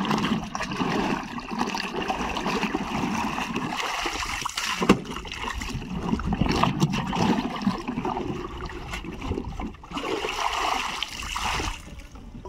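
Water splashing and sloshing, with a sharp knock about five seconds in.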